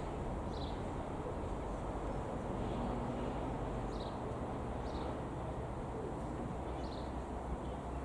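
Distant, steady drone of a Diamond DA62's two turbo-diesel piston engines passing overhead, with a small bird's short falling chirps a few times.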